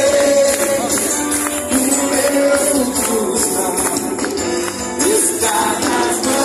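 Live band music with a voice singing a melody over steady, regularly struck high percussion, likely a tambourine or cymbals.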